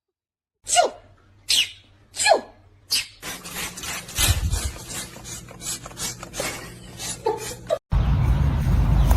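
Three short animal calls about a second apart, each falling in pitch, followed by a run of quick clicks and softer calls. A hard cut near the end gives way to louder, rumbling background noise.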